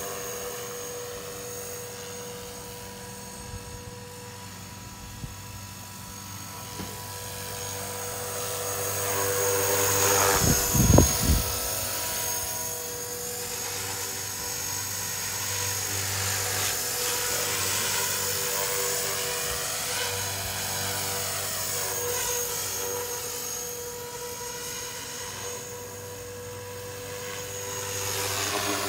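Blade 330S electric RC helicopter, fitted with an X-Nova XTS brushless motor, flying: a steady motor and rotor whine that rises and falls in pitch and loudness as it moves about, loudest around ten seconds in with a short low rumble. It is flown on gentle power because the new motor is still being broken in.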